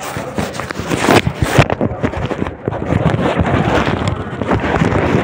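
Loud rustling and rumbling of a phone's microphone being handled and rubbed as the phone is carried. It stops abruptly at the end.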